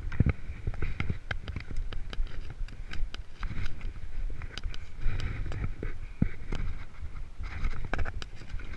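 Mountain bike ridden over rough, rocky ground: a steady low rumble of wind and trail vibration, with frequent sharp rattles and knocks as the bike jolts over rocks.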